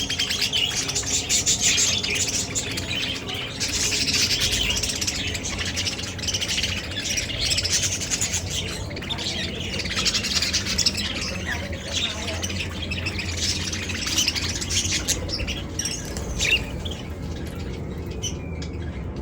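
A group of budgerigars (budgies) chattering, with dense, continuous chirps and squawks. The chatter thins out in the last few seconds.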